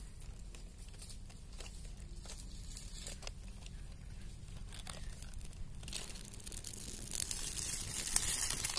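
Kindling fire of dry twigs and leaves being lit: scattered small crackles and snaps, building from about six seconds in to a denser crackling hiss as the flames take hold.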